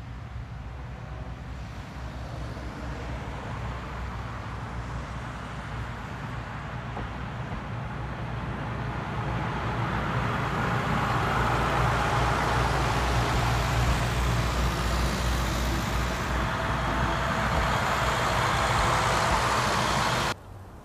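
Diesel railcar train (tatami-mat excursion set converted from KiHa 400 and KiHa 56 cars) approaching with its diesel engines running, growing steadily louder, then passing close by with a loud rumble of running gear on the rails. The sound cuts off suddenly near the end.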